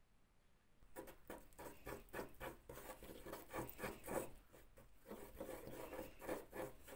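Wooden stick stirring and scraping two-part filler and its red hardener together on masking tape laid on a hard surface: a run of quick rubbing strokes, about three a second, starting about a second in.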